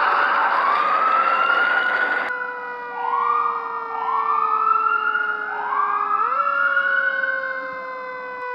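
An emergency siren sounding in repeated rising whoops, each sweeping up in pitch over about a second, every second or two. For the first two seconds it sits over a loud rushing noise that cuts off abruptly, and steady held tones sound beneath it.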